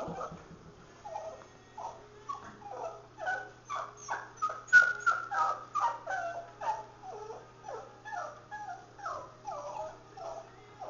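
Pomeranian whimpering in a long, rapid string of short, high whines, two or three a second, many dropping in pitch, loudest around the middle.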